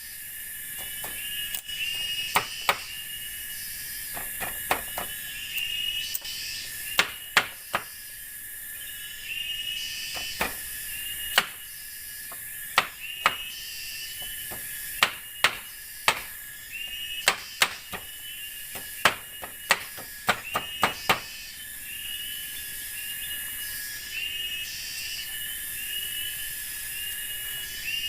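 Night forest insects calling steadily, with a repeated chirping call about once a second, overlaid by a series of sharp knocks at irregular intervals that stop about three quarters of the way through.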